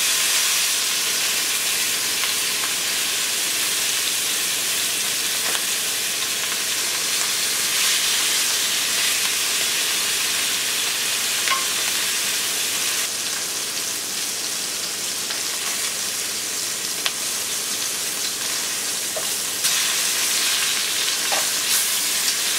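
Beef short ribs searing in hot oil in a nonstick pot: a steady sizzle, with a few faint clicks as tongs move the ribs.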